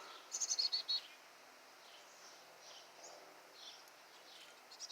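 Small songbirds chirping at a nest with fledglings: a quick run of high chirps about half a second in, then single chirps repeating roughly every half second.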